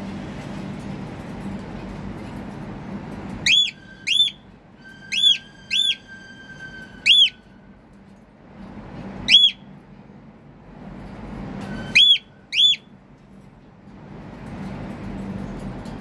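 Cockatiel giving eight short, loud whistled calls, each rising and falling in pitch, some in quick pairs, over a low steady hum. The owner takes the calling for hunger.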